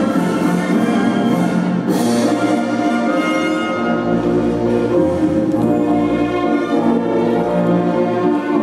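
Orchestral polonaise music with brass and strings, playing steadily.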